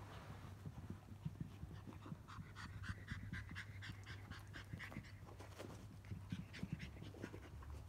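Cavalier King Charles spaniel puppy panting quickly, about six short breaths a second, starting about two seconds in and easing off past halfway, over a steady low hum.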